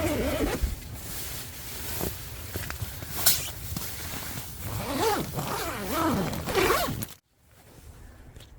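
Tent door zipper being pulled open in several strokes, scratchy and rising and falling in pitch. It cuts off abruptly about seven seconds in, leaving a quiet hiss.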